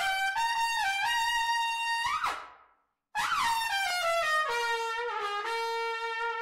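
A trumpet playing a short two-phrase fanfare. The first phrase is a few held notes ending in a quick bend up in pitch. After a brief silence about halfway through, the second phrase opens with a falling smear and steps down to a low held note.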